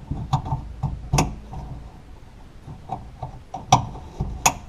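Electrical connectors being pushed back onto a car door lock actuator and handled inside the door panel: scattered knocks and rustling, with three sharp plastic clicks about a second in, near the end, and just before the end.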